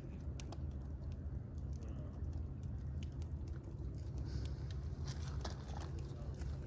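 Wood fire crackling: irregular sharp pops and snaps over a steady low rumble, growing busier in the last couple of seconds.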